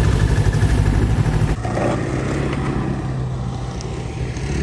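Lynx snowmobile engine idling close by with a fast, even pulse. About one and a half seconds in the sound changes abruptly to a quieter, steadier engine sound of snowmobiles running.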